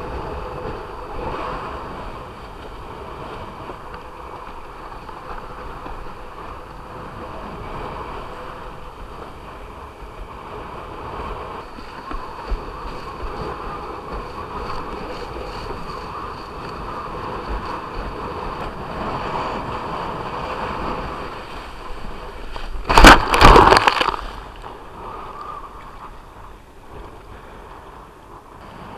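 Windsurf board planing over choppy water, heard from a camera mounted low on the board: a steady rush of water and wind. About three quarters of the way through, a loud burst of spray hits the camera for about a second.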